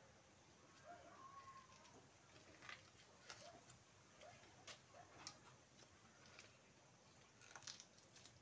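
Near silence with faint eating sounds: chewing and mouth smacks as chicken and rice are eaten by hand, heard as scattered soft clicks.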